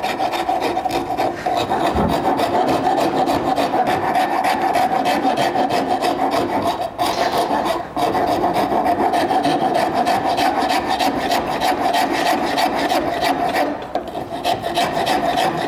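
Hand wood rasp working the corners of a rough bandsawn wooden handle clamped in a vise: a steady run of quick rasping strokes, rounding off the saw-cut edges. The strokes break off briefly about seven and eight seconds in.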